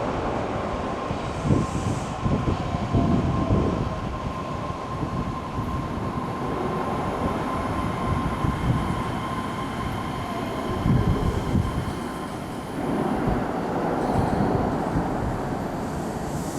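Osaka Metro 400 series electric train running into the station and slowing, wheels knocking over rail joints in the first few seconds, with a steady high whine.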